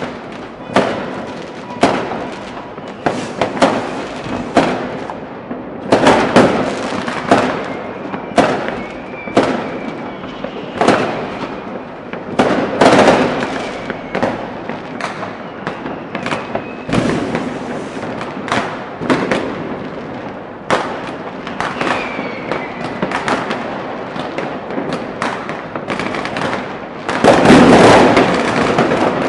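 New Year's Eve street fireworks and firecrackers: a dense, irregular barrage of bangs and pops, some with a faint whistle, growing louder and denser near the end.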